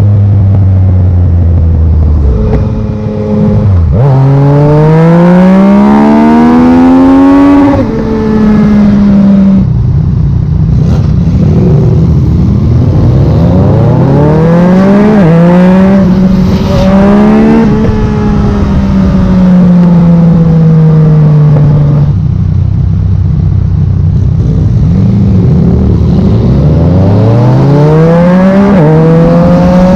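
Yamaha MT-09 inline three-cylinder engine through a Black Widow full exhaust system, accelerating hard through the gears: the engine note climbs in pitch and drops sharply at each quickshifter upshift, several times over. In between it falls slowly while decelerating and holds a steady low note before climbing again near the end.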